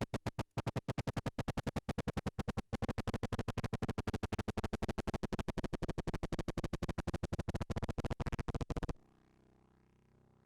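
Modular synthesizer playing a fast, even train of harsh noisy clicks, several a second, that cuts off suddenly near the end, leaving a faint hum.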